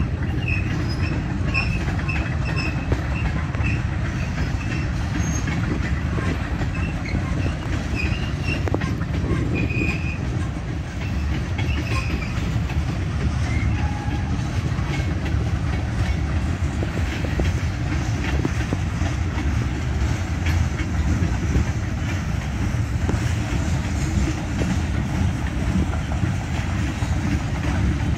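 Freight cars of a passing train (tank cars, covered hoppers and boxcars) rolling by at steady speed: a continuous low rumble of steel wheels on rails, with short high chirps now and then in the first half.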